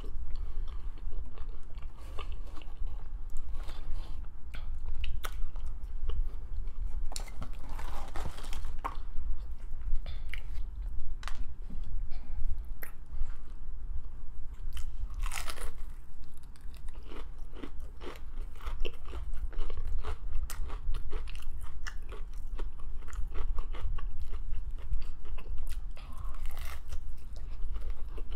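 Close-miked eating of crispy fried chicken: continuous chewing with many small crunches and wet mouth clicks.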